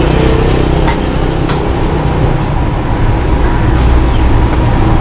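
Steady low rumble of a wok burner with noodles sizzling in a large wok, and two sharp clinks of the metal spatula against the wok about a second in.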